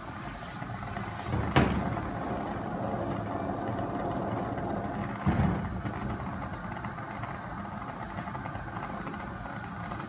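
Water with tea leaves boiling on a gas burner in a saucepan: a steady bubbling under the burner's flame. A sharp knock comes about a second and a half in, and a dull thump about five seconds in.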